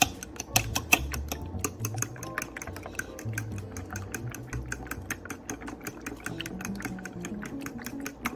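Raw eggs being beaten briskly in a bowl, the utensil clicking against the bowl several times a second in a steady rhythm.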